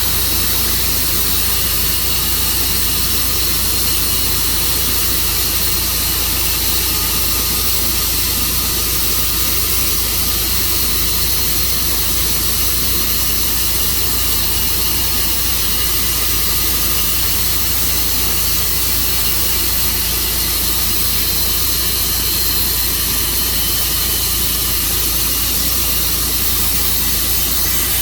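Tru Cut sawmill running steadily, its engine and blade cutting through an elm log.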